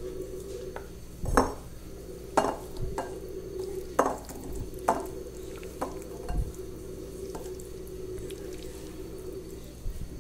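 A spoon knocking and scraping against a bowl as food is spooned into a serving dish: about nine sharp taps spread over the first seven seconds, over a steady low hum.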